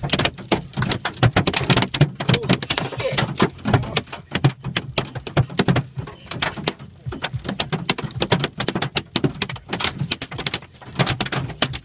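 Hailstones hitting a car's roof and windows, heard from inside the cabin: a dense, irregular clatter of sharp hits that keeps up without a break.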